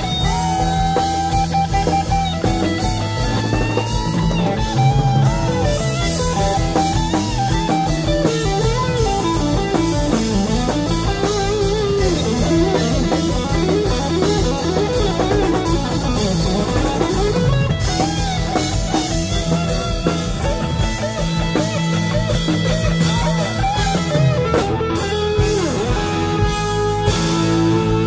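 Live rock band playing through a PA: electric guitar over bass and drum kit, with a melodic line that bends and wavers in pitch.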